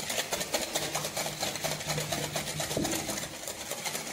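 A wire whisk beating a runny egg, butter and oil mixture in a glass bowl: a fast, even clicking of the wires against the glass, several strokes a second.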